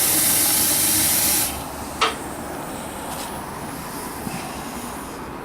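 Steam hissing from a small steam boiler's blower jet, cutting off sharply about a second and a half in. A single sharp click follows, then only a quieter steady low noise remains.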